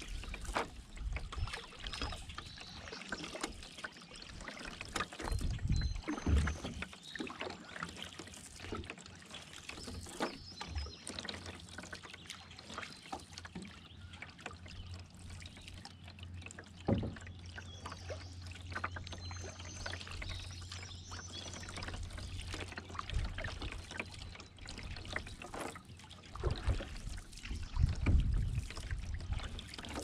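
Canoe paddling: the paddle dips and swishes through calm river water, and drips and trickles run off the blade between strokes. Faint birdsong comes from the banks, and there are a few louder low bumps about five seconds in and near the end.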